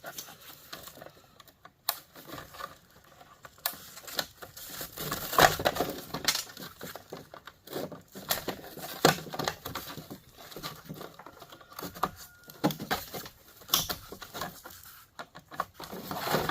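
Scattered clicks, knocks and clatter of hand tools and metal and plastic parts being handled while a line conditioner is dismantled for scrap.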